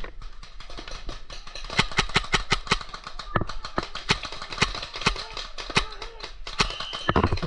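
Paintball markers firing: an irregular series of sharp shots, several a second, some much louder than others.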